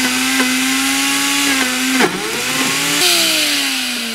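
Omega BL630 blender motor running at speed under a thick coconut mixture, briefly bogging down with a knock about two seconds in, then switched off about three seconds in and winding down with a falling whine.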